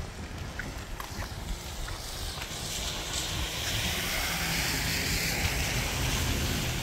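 Gusty wind buffeting the phone's microphone, a steady low rumble, with a hiss that swells about three seconds in and holds to the end.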